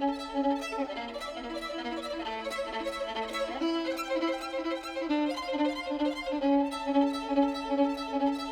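Violin music: one note repeated in short pulses, with a sliding, wavering melodic passage between about one and five seconds in before the pulsing note returns.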